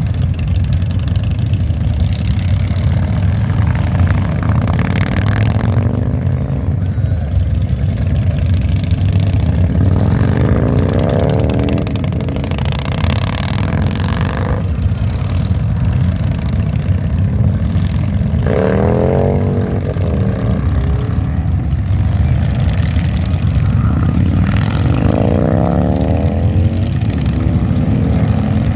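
A line of large touring motorcycles and trikes running with a steady low rumble. Three times, a bike pulls away with its engine note rising: about a third of the way in, about two thirds in, and near the end.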